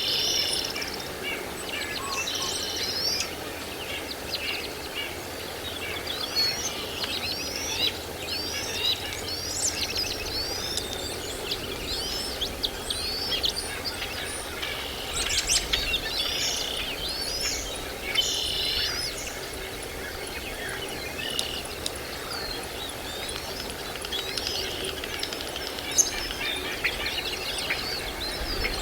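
Birds chirping: many short, overlapping chirps and whistled notes, thickest about halfway through, over a steady outdoor background hiss.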